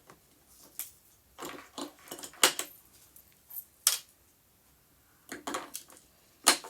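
Short clicks, knocks and rustles of a boxed makeup mirror and its packaging being handled and fitted together, coming in scattered bursts with quiet gaps.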